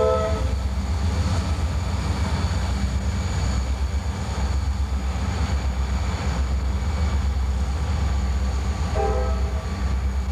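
Diesel locomotive running with a heavy low engine rumble. Its chime air horn is ending a blast as the sound begins and gives one more short blast near the end.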